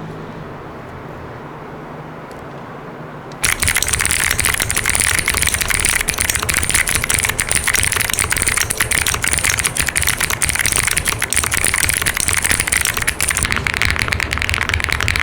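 Fast, continuous typing on a mechanical keyboard with Akko Creamy Cyan switches, a dense stream of keystroke clicks that starts suddenly a few seconds in after a quieter steady hum. Near the end the keystrokes change to Akko Stellar Rose switches, sounding duller with less high click.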